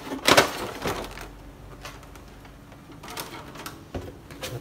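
Cardboard toy box with a plastic window being pulled open and handled: a loud rustling scrape in the first half-second, then softer scrapes and clicks, and a knock near the end.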